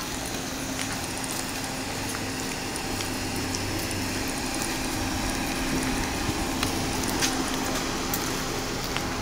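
City street background noise: a steady rushing haze with a faint low hum and a few faint clicks.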